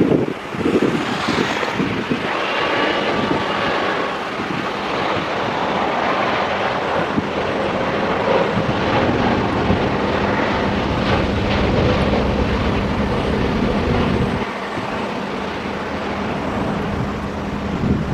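Jet airliner landing, its engines making a steady rushing sound with a faint whine. Wind buffets the microphone near the start and near the end.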